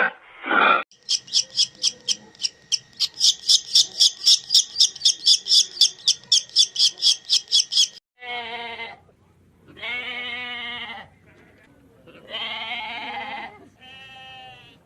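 A rapid, even series of high-pitched chirps, about four or five a second, runs for some seven seconds. It is followed by four bleats from a goat or sheep, each about a second long with a wavering pitch.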